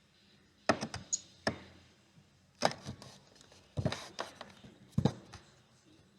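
Sharp clicks and knocks of small hard objects, in four quick clusters about a second apart.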